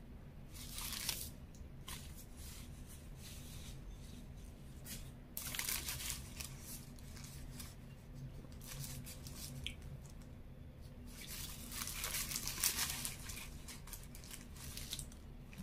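Paper burger wrapper crinkling and rustling in hand in three bursts: a short one about a second in, then longer ones around the middle and near the end, over a steady low hum.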